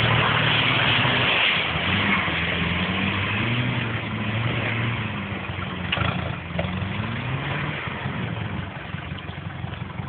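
Off-road vehicle's engine revving up and down over and over, its pitch rising and falling every second or two, with a loud rushing noise in the first couple of seconds and a single knock about six seconds in.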